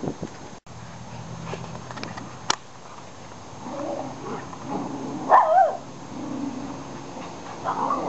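Border terrier giving short whining yelps, the loudest about five seconds in, with a sharp click about two and a half seconds in.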